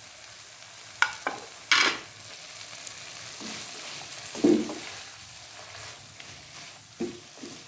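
A metal spoon clinking and scraping chopped vegetables and boiled chicken off a plate into a hot non-stick pan, then a spatula stirring them with a faint sizzle and a few soft knocks against the pan.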